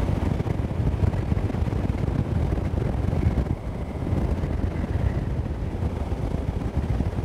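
Wind buffeting the microphone of a KTM 990 SMT motorcycle on the move, with the bike's V-twin engine and road rumble running underneath as a steady low drone. The level dips briefly about three and a half seconds in.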